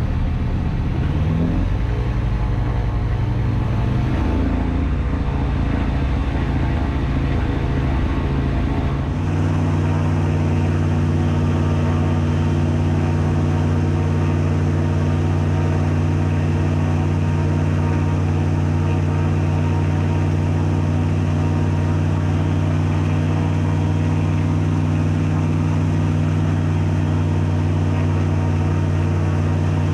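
Searey amphibian's pusher engine and propeller heard from the cockpit while the plane is on the water. For the first nine seconds the engine speed shifts under a low rush of wind and water. Then it changes abruptly to a steady, even idle hum as the plane taxis slowly.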